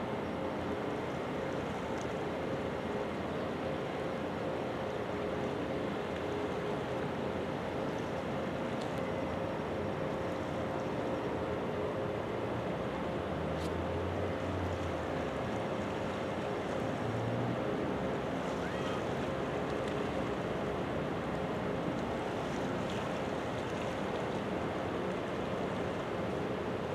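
Steady drone of a small container ship's machinery heard across the water, with a faint constant tone in it. It is mixed with wind and water noise.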